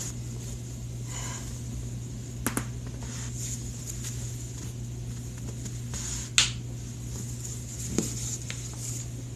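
Human joints cracking: a quick double pop about two and a half seconds in, a loud sharp pop a few seconds later, and a softer pop near the end, over a steady low hum.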